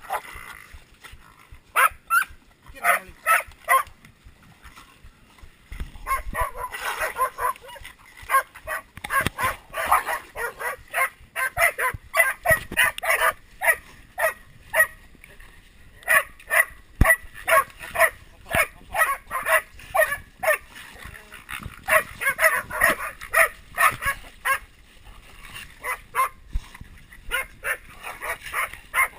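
Pig-hunting dogs barking and yipping rapidly and repeatedly, baying a cornered wild pig in the brush. The barking is sparse at first, then comes thick and fast from about six seconds in.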